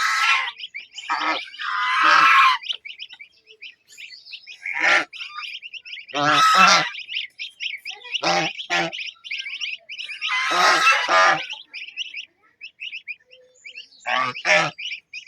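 Domestic goose goslings peeping in a rapid, continuous chatter, with several louder, harsher calls breaking in every second or few.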